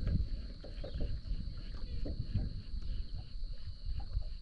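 A steady high-pitched insect drone over irregular low rumbling and a few faint knocks.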